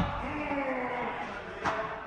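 Padel ball impacts during a rally: a dull thud right at the start, then a sharper crack about one and a half seconds in, with voices faintly underneath.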